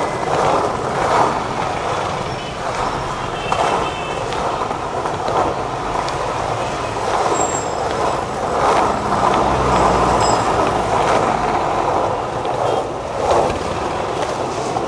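Skateboard wheels rolling over rough street asphalt, a continuous gritty rolling noise with a few clicks. A vehicle engine rumbles past about halfway through, amid street traffic.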